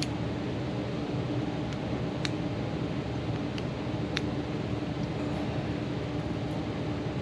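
A few light, sharp clicks, spread out over several seconds, from a small flat screwdriver tightening ferruled wires into a connector's terminal screws, over a steady background hum.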